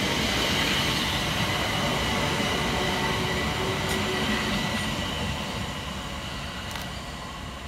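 London Overground Class 378 Electrostar electric multiple unit running along the platform. Its wheel-and-rail rumble carries a steady high whine and slowly fades toward the end.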